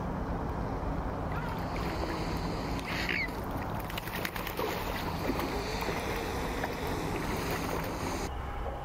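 Steady outdoor background noise, with a short bird call about three seconds in. The hiss in the upper range drops away near the end.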